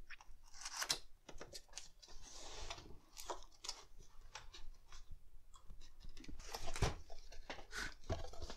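Cardboard box being handled and its lid opened by hand: scattered scrapes, taps and papery rustles, with a louder cluster of knocks and scrapes near the end.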